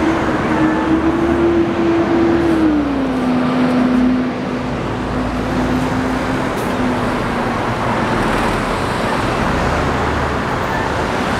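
Road traffic on a city street, with one vehicle's engine holding a steady hum that drops in pitch about three seconds in and fades out a few seconds later.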